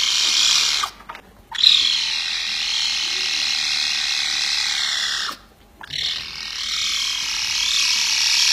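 An animal giving long, noisy calls of about four seconds each, with short breaks between them.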